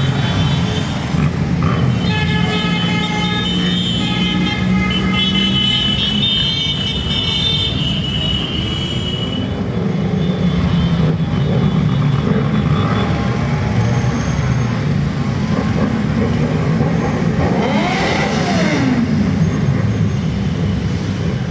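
Motorcycles riding past in a procession, engines running under a string of horn toots a couple of seconds in, with a rise and fall in pitch near the end.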